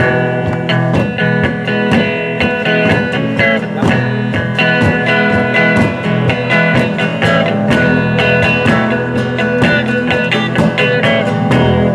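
Live worship band playing an instrumental passage between sung verses: guitar and other held instrument notes over a steady beat, with a 5-foot pow wow drum keeping the rhythm.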